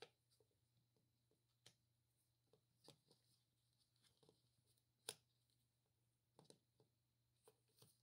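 Faint, scattered clicks and taps of a plastic slide dimmer switch and its wire leads being handled and turned over by gloved hands on a wooden table, the sharpest tap about five seconds in. A low steady hum runs underneath.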